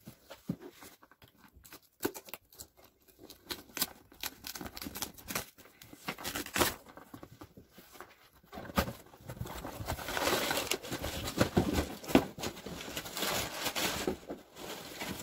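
A cardboard shipping box being opened and unpacked by hand. Scattered knocks and scrapes come first, then from about nine seconds in a denser stretch of packaging rustling that runs until just before the end.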